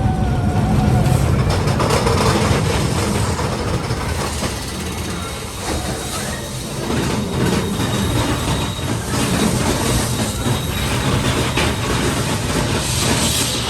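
Mine-train roller coaster cars running along the track: a loud, continuous rumble and rattle of wheels on rail, with a short wheel squeal at the start.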